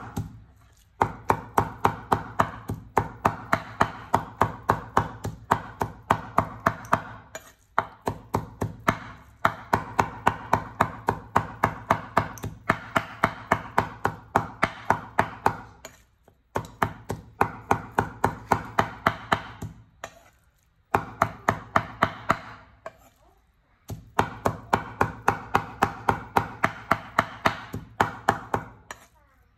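Cleaver mincing raw meat on a wooden cutting board: rapid, even knocks, about four a second, in runs broken by a few short pauses.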